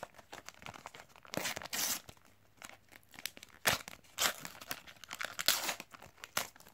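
A paper sticker sachet being torn open by hand: a series of separate tearing and crinkling rips, the longest about a second and a half in and another around five seconds in.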